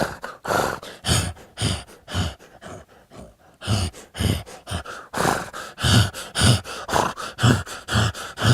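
A Foley artist voicing a horse's breathing with his mouth: heavy, rhythmic breaths about two a second, with a softer stretch about three seconds in, as the breathing shifts from horse-like to a ragged man's breathing and back.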